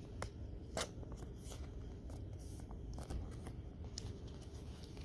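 Faint handling of Pokémon trading cards: a handful of light taps and flicks as cards are moved and set down, over a low steady background hum.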